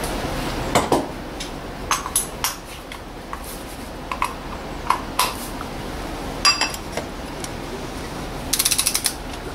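Scattered metal clicks and clinks as a cup-type oil filter cap wrench and extension are fitted onto the oil filter housing cap of a 2003 Volvo V70 2.4. Near the end comes a quick run of ratchet clicks from the wrench.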